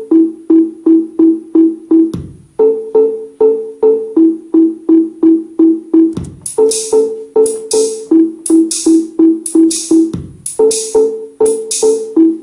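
Teenage Engineering OP-1 synthesizer playing a looped electronic sequence of short percussive notes, about three a second, switching back and forth between a higher and a lower pitch. About six seconds in, a hissing hi-hat pattern joins the beat.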